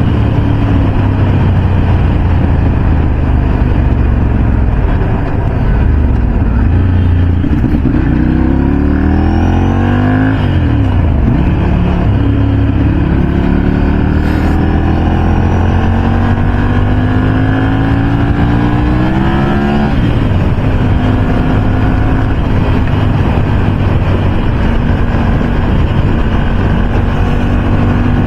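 Motorcycle engine running at highway speed under wind noise. The pitch climbs twice, briefly about eight seconds in and then steadily from about twelve to twenty seconds in, dropping after each climb.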